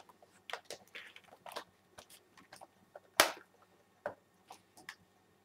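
Light clicks and rustles of a laptop's plastic case being handled and turned over, with a sharper knock about three seconds in as it is set down bottom-up.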